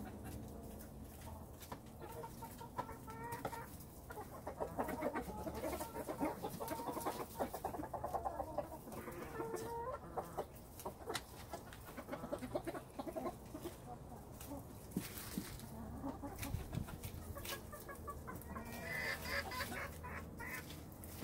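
A flock of backyard chickens clucking as they feed on Swiss chard, short calls repeating throughout, with scattered short sharp taps and a brighter, higher run of calls near the end.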